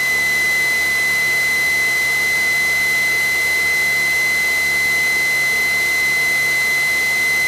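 A steady high-pitched electronic tone over loud static hiss in the aircraft's radio and intercom audio, holding unchanged.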